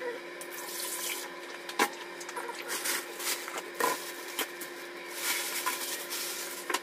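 Thin red plastic bag rustling and crinkling in several bursts as it is lifted and opened, with a few sharp knocks in between and a steady low hum underneath.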